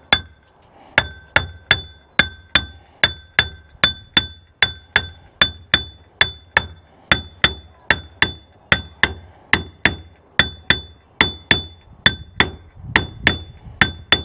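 Steady hammer blows, about two a second, tapping the brake housing of a Bobcat T190 hydraulic drive motor down over its brake disc pack. Each strike rings briefly on the metal.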